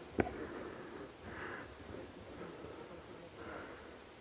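Breathing close to the microphone, soft puffs of air every second or two, with one sharp click just after the start.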